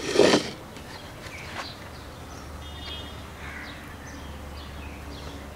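Quiet outdoor background with a single short bird chirp about three seconds in and a steady low hum in the second half. A brief scuffing sound from handling things on the table opens it and is the loudest thing heard.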